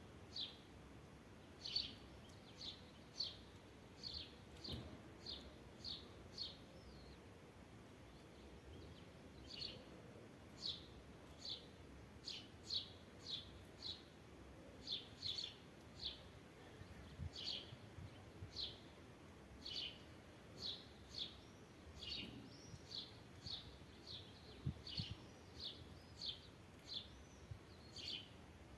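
A bird chirping over and over, short sharp high calls coming about twice a second, with a pause of a couple of seconds about a quarter of the way in.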